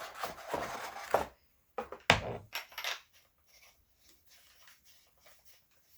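Hard parts of a paintball gun being handled and fitted together: rustling and clinking, with two sharp clacks in the first few seconds, then only faint small taps.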